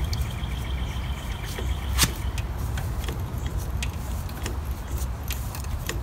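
A hand-lever grease gun is being pumped into the spindle's grease fitting on a Snapper Comet mower deck, giving scattered clicks, with a sharper click about two seconds in. A steady low rumble sits underneath.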